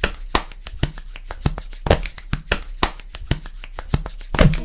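A quick, uneven run of sharp clicks or claps, about five a second.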